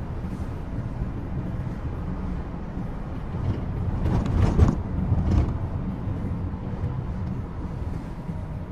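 Steady cabin noise of a moving Toyota HiAce Premio van: its 2.8-litre diesel engine and the tyres on the road, heard from inside. It swells louder with a rushing sound about halfway through, then settles back.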